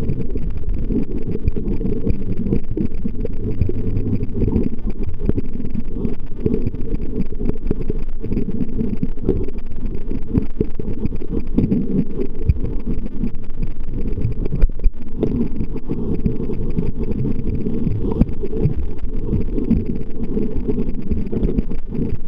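Muffled, steady underwater rumble picked up by a camera in its waterproof housing, with one brief knock about fifteen seconds in.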